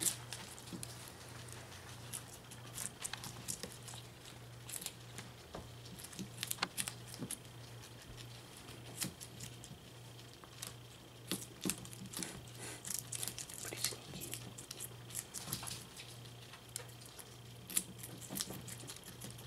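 Guinea pigs chewing cucumber pieces: irregular crisp crunches and nibbling clicks, over a faint steady hum.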